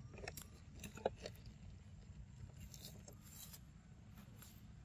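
Faint outdoor background with a few soft, scattered clicks and crackles, a small cluster about a second in and a few more in the middle.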